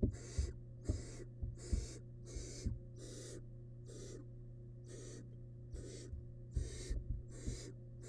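Barn owl nestlings giving their rasping, snore-like begging hisses, short breathy calls about every half second that overlap from more than one chick. Low thumps and scuffles of the chicks shifting on the nest-box floor come in between, over a steady low hum.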